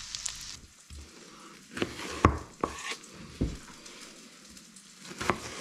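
Panko-breaded fish frying in a pan, a steady sizzle that drops away about half a second in, followed by several sharp clicks and knocks of a utensil against the pan.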